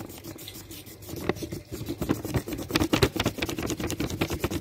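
Crayon scribbled rapidly back and forth on paper laid over a leaf, making quick scratchy strokes for a leaf rubbing. The strokes get denser and louder from about a second in.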